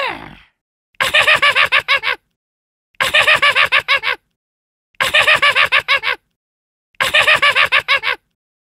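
Goblin monster sound effect: a high, rapid stuttering cackle of about ten quick pulses, played four times about two seconds apart, just after the end of a falling cry.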